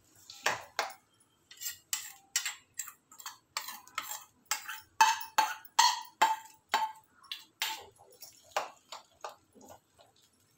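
A steel spoon scraping and knocking against a stainless steel bowl as mashed amla is scraped out into the cooking pot: a quick, irregular run of metal clinks and scrapes. The loudest strikes, in the middle, ring briefly.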